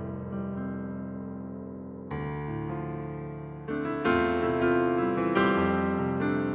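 Slow, gentle piano or electric-piano music: sustained chords struck every second or two, each left to ring and fade, the playing growing louder about four seconds in.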